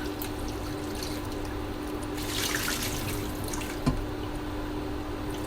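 Tap water trickling and splashing in a kitchen sink as blanched pork is rinsed in cold water. There is a burst of heavier splashing about two seconds in and a single knock near four seconds.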